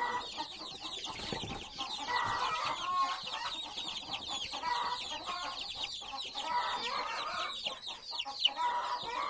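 A flock of young chickens peeping continuously: many short, high, falling peeps overlap without a break. Lower calls come in clusters every second or two.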